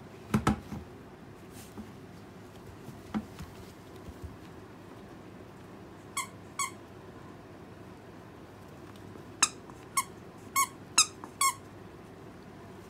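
Asian small-clawed otter giving short high-pitched squeaks: two about six seconds in, then a quick run of five near the end. A couple of knocks come at the very start.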